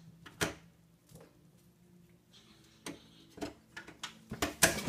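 A cat pushing through a pet door, its flap clicking and knocking in the frame: one sharp knock about half a second in, a couple more around three seconds, and a quick run of louder knocks near the end.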